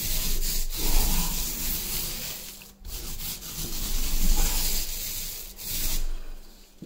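Paint roller rolling up and down a wall, a rough rubbing sound in long passes that break off briefly twice.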